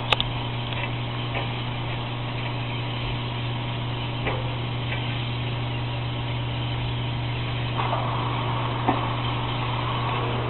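Steady low electrical hum over a constant hiss, with a few faint clicks, a slight swell of noise near the end, and no speech.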